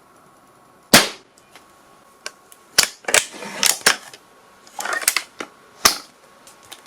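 Gunshot sound effects: one loud, sharp shot about a second in, then an irregular run of about ten more shots of varying loudness over the next five seconds, several fired close together.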